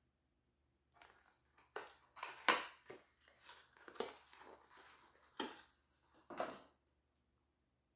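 Plastic packaging, bubble wrap, crinkling and rustling as a makeup compact is unwrapped by hand. It comes as a run of irregular crackles starting about a second in and stopping shortly before the end.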